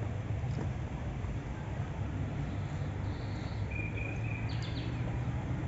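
Outdoor garden ambience: a steady low rumble under a few short bird chirps and a brief whistled bird note about three to four and a half seconds in.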